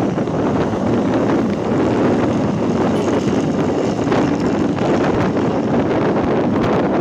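Loud, steady wind rumble on the microphone mixed with vehicle engine and road noise.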